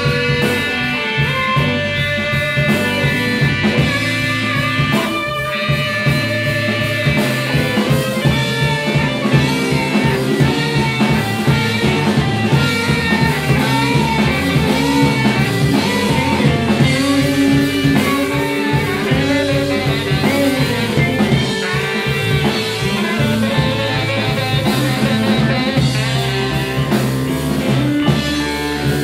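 Live blues band playing a slow soul-blues ballad: electric guitar leading over bass and drum kit, with saxophone in the band.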